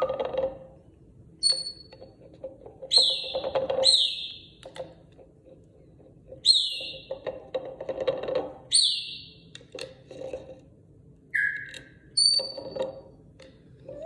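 An African grey parrot gives about seven short whistles, most of them dropping in pitch, mixed with the rattle and scrape of a glass tumbler being pushed and spun on the countertop.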